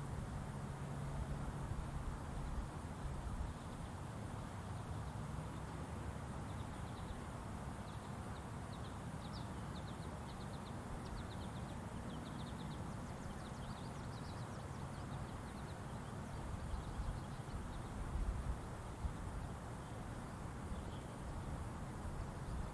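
FS&S STL-10A outdoor warning siren (10 HP motor, 7-port rotor) late in a very long wind-down after its alert test, now only a faint low drone that weakens after the first few seconds. Small birds chirp over it through the middle, above a low background rumble.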